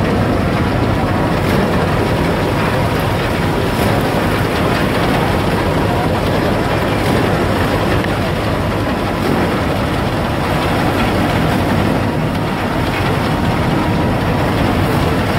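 Wheat thresher powered by a Fiat 640 tractor's diesel engine, running steadily under load as sheaves of wheat are fed into its drum. The noise is loud and continuous, with no pauses.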